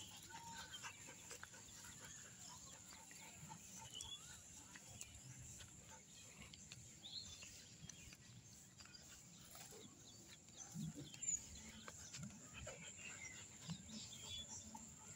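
Faint outdoor ambience: scattered bird chirps, with a few short low sounds from the dogs near the end.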